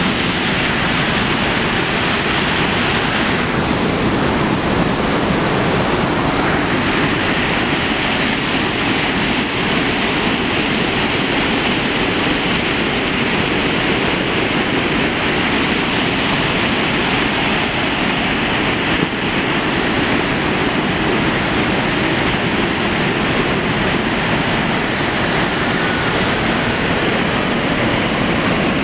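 Fast river water rushing over a low man-made falls and rapids: a loud, steady, unbroken roar.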